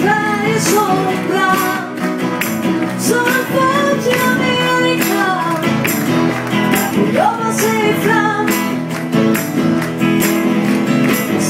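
Live band performance: several acoustic guitars strummed together, with singing voices on top and a steady, regular, high percussive beat.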